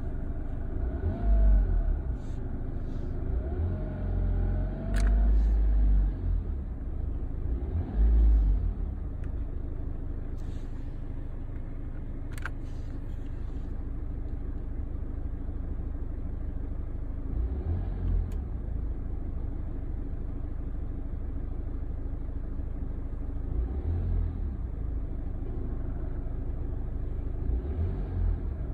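The unexplained noise in a BMW F30's cabin with the air conditioning on: a steady low rumble broken by irregular louder, deeper swells every few seconds, with a faint wavering tone in the first few seconds and a couple of sharp clicks.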